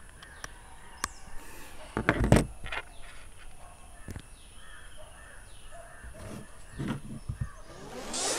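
Faint outdoor background with scattered knocks and rustles as wired earphones are plugged into a phone and fitted into the ears close to a clip-on microphone. The loudest is a thump about two seconds in.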